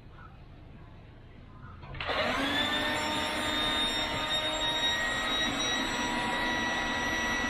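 Electric air pump switching on about two seconds in and running steadily with a steady whine, pumping air through a hose into an inflatable kayak boat.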